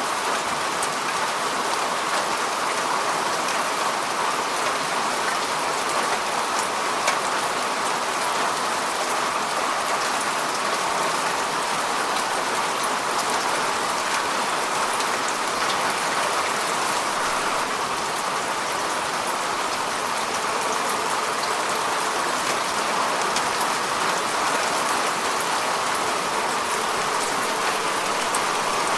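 Steady rain falling, an even patter of many drops hitting a surface, densest in the middle range with fine scattered drop ticks on top.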